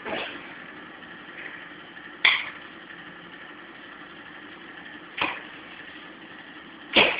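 Boxing-glove punches landing during sparring: four sharp slaps a few seconds apart, the last the loudest, over a steady background hum.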